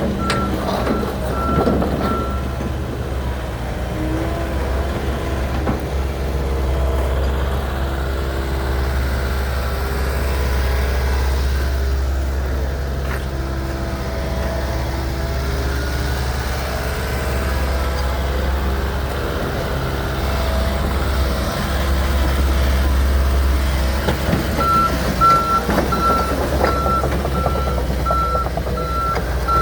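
Komatsu PC138US-11 excavator's diesel engine running steadily under hydraulic work, with shifting hydraulic whine. Its alarm beeps at a steady rate for the first couple of seconds and again near the end.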